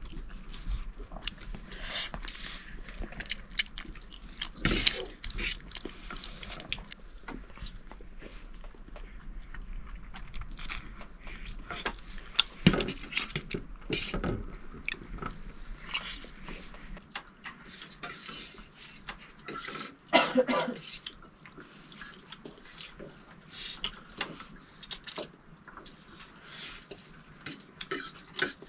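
Irregular clinking, knocking and scraping of pots, dishes and utensils, with a few louder knocks.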